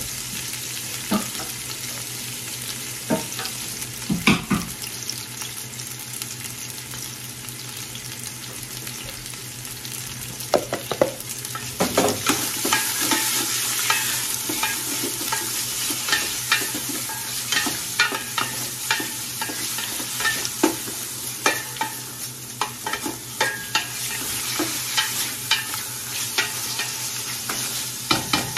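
Sausage and chicken pieces sizzling in hot oil in a stockpot, with a steady hiss. A wooden spoon scrapes and knocks against the pot as they are stirred, the knocks scattered at first and coming thick and fast from about ten seconds in.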